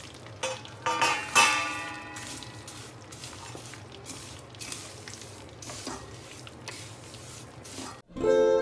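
Wooden spatula stirring and scraping dry vermicelli in a stainless steel kadai, with a few sharp knocks against the pan in the first second and a half that leave the steel ringing briefly. Near the end the sound cuts out and background music starts.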